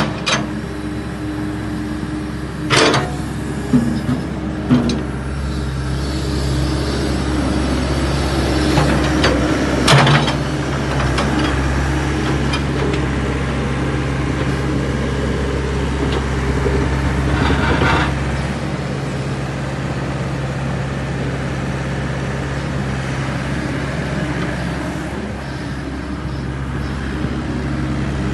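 Takeuchi TB285 rubber-tracked excavator at work: its diesel engine runs steadily under hydraulic load as the machine swings and travels. A few sharp metal clanks from the bucket and boom linkage come in the first ten seconds. The deep rumble eases a little after about eighteen seconds.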